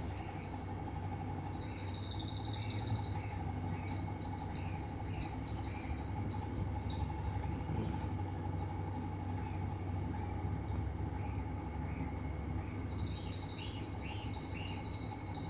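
Steady low hum with faint, short high squeaks coming in runs, about two a second, from a pet otter as it mouths a person's hand.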